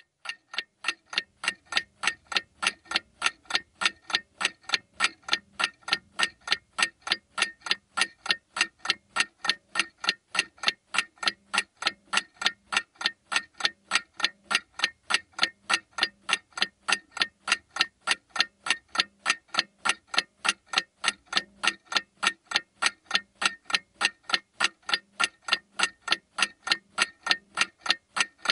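Clock ticking, fast and perfectly even at about three ticks a second, each tick a short sharp click with a slight ring.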